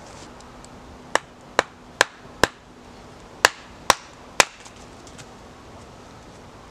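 Wooden baton striking the spine of a knife driven into a piece of wood to split it for kindling (batoning). There are seven sharp knocks: four about half a second apart, a short pause, then three more.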